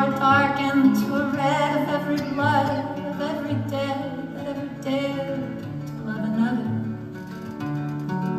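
A man singing with a wavering vibrato over an acoustic guitar, solo and live; the voice falls away about six and a half seconds in, leaving the guitar playing on.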